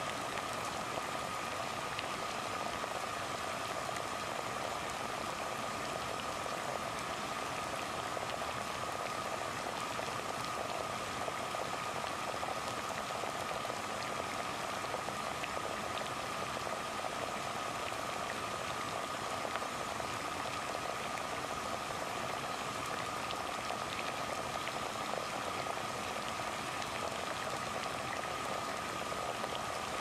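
Water boiling steadily over a burning gas flame, an even, unbroken bubbling with fine ticks all through.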